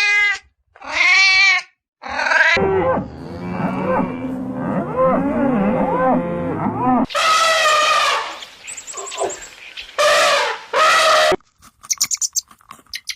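A run of animal calls: a cat meows three times in the first couple of seconds, then a herd of farm animals, likely cattle, calls over one another for several seconds, followed by three loud separate calls and some short clicky sounds near the end.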